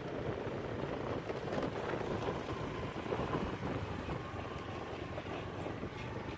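Steady rumbling noise of riding along a dirt track, with wind buffeting the microphone.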